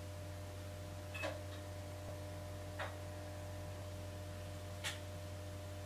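Quiet room tone: a steady low hum with three faint, short clicks spread across a few seconds.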